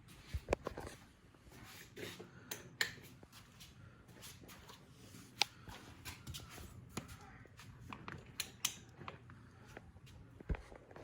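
Scattered light clicks and knocks of things being handled, irregular and a few per second, over a faint steady low hum.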